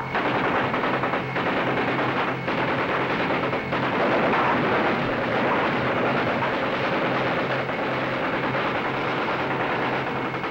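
Sustained automatic machine-gun fire from a river patrol boat (PBR) raking the riverbank, a dense unbroken rattle of rapid shots with a low steady hum underneath.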